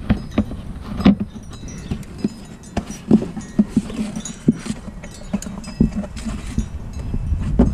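Irregular clicks, taps and light knocks of hands working in a car's rear wheel well, among the plastic fender liner and the parts behind it, two or three a second over a low steady rumble.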